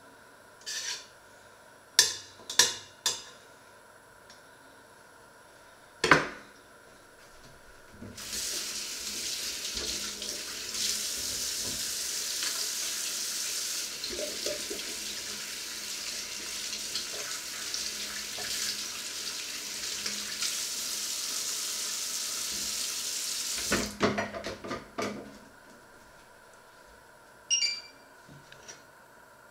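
Kitchen tap running steadily into a steel sink for about fifteen seconds. Before and after it come sharp clanks and clatter of stainless steel pots and utensils, and the loudest clanks are a few seconds in.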